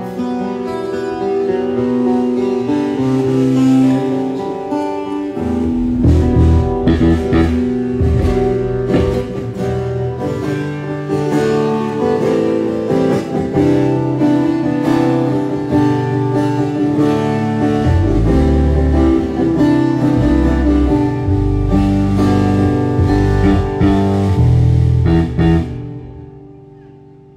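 Acoustic-electric guitar played loudly through a stage PA during a soundcheck, with deep low notes joining about five seconds in. The playing stops near the end and rings away.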